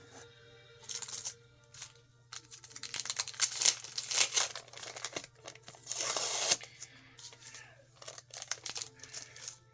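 Plastic or paper packaging being torn open and crinkled in irregular noisy bursts, briefly about a second in, then more densely from about two to six and a half seconds in.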